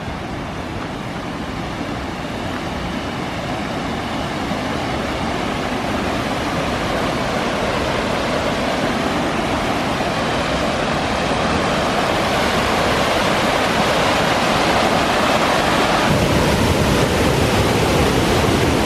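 Waterfall rushing, a steady roar of falling water that grows gradually louder as it is approached.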